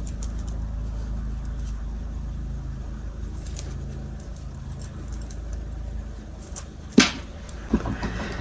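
Steady low background hum with faint handling clicks as hands tie off cotton yarn, then a single sharp knock on the wooden table about seven seconds in as the finished tassel is set down.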